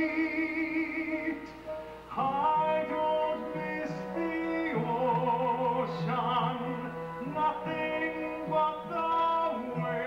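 A musical theatre number performed live by a pit orchestra with a singer: long held notes with vibrato, and a fuller chord entering about two seconds in.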